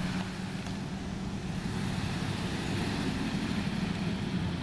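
1976 Jeep J10 Honcho pickup truck driving past, its engine giving a steady low rumble over tyre and road noise.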